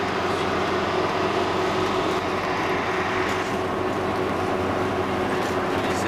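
Vehicle driving along a road: a steady engine hum under even road noise, at a constant level.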